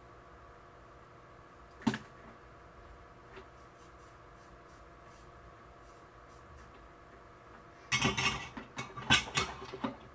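Workbench handling noises: a single sharp click about two seconds in, then a couple of seconds of knocking and scraping near the end as the soldering iron and its tip-cleaning sponge are put down.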